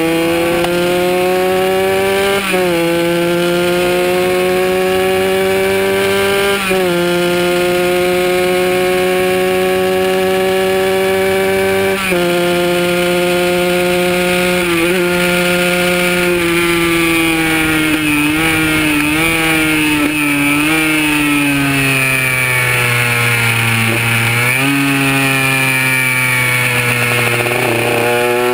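Kawasaki KR150's single-cylinder two-stroke engine pulling hard, its pitch climbing steadily and dropping sharply at each upshift, about 2.5, 7, 12 and 15 seconds in. Then the pitch falls with several quick blips as it changes down, and near the end it climbs again under acceleration, with wind rush underneath.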